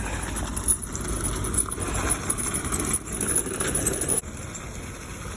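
Trucks moving on a snow-covered highway, with irregular clinking and crunching over a low rumble. The sound drops off abruptly about four seconds in.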